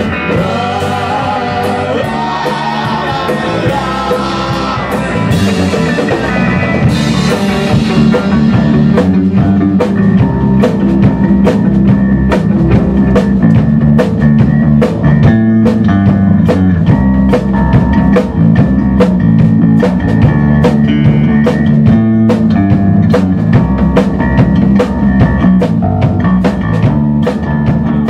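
Rock band playing live: electric guitar, bass guitar and a Tama drum kit. From about eight seconds in, a steady drum beat stands out.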